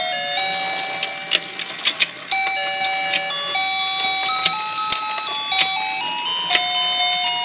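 Battery-powered rotating toy fishing pond playing its electronic beeping melody, one plain note at a time, with sharp clicks scattered through it.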